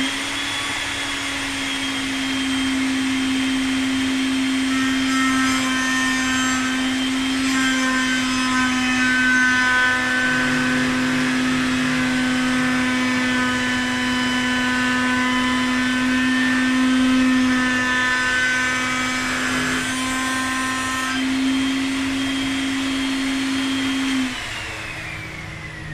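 Table-mounted router spinning up, then running for about 24 seconds while a bearing-guided straight copying bit trims a layer of wood flush to the template piece beneath it. It is switched off near the end and its whine falls as it winds down.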